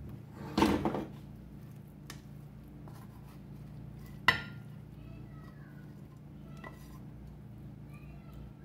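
Frying pan being moved and fried tortilla pieces scraped out of it onto a ceramic plate with a plastic slotted spatula. There is a clattering scrape about half a second in, a sharp knock of pan or spatula against the plate about four seconds in, and a few lighter clicks, over a steady low hum.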